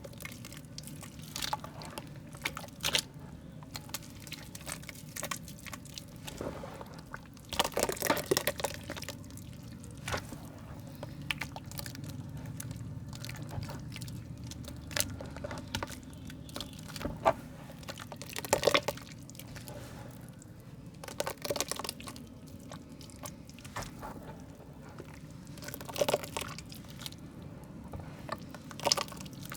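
Soft, moist mud being crumbled: irregular soft crunches and crackles, with louder bursts of crumbling about a quarter of the way in, just past the middle and near the end.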